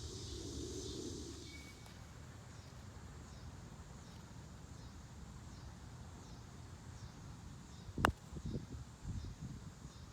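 A golf club strikes a ball once, a single sharp crack about eight seconds in, followed by a few dull low thumps. Faint, evenly repeated short high chirps run in the background.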